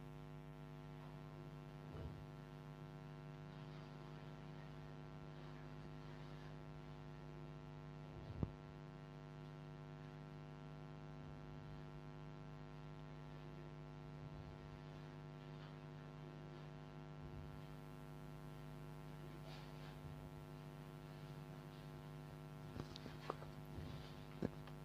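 Faint, steady electrical mains hum, with a few soft clicks: one about two seconds in, a sharper one about eight seconds in, and a small cluster near the end.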